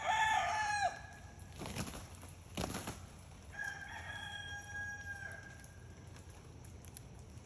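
Roosters crowing in a standoff between two rival cocks: one crow at the start and a second, steadier crow about three and a half seconds in. Two sharp thuds fall between the crows.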